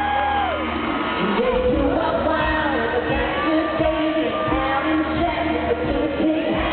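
A female lead singer singing a country-pop song live over a full band, with the echo of a large arena.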